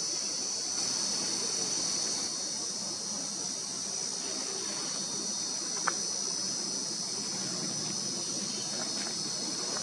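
Steady, high-pitched chorus of insects running without a break, with a single sharp click about six seconds in.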